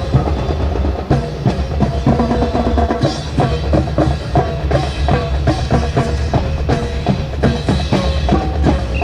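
Marching drum cadence with snare and bass drums playing a steady, quick rhythm of dense strokes.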